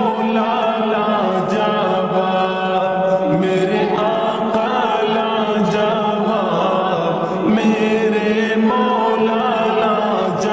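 Urdu devotional naat in a slowed-down, heavily reverbed mix: layered voices hold long chanted notes that shift every second or two.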